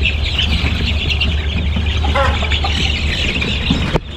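A brooder full of two-week-old meat chicks peeping continuously over a steady low hum, with one short louder call about two seconds in. The sound drops away suddenly near the end.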